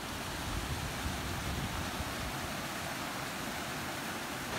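A mountain stream rushing and splashing over granite rocks in small cascades, a steady rush of water.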